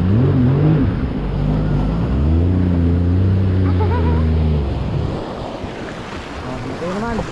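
Jet ski engine running, its pitch rising and falling a few times, then fading out about five seconds in, leaving wind and water noise.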